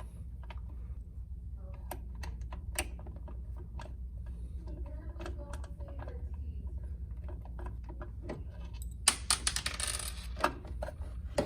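Scattered clicks and taps of a screwdriver and small screws as the two screws holding an under-desk bike's console to its frame are taken out, with a dense run of quick clicking about nine seconds in, over a steady low hum.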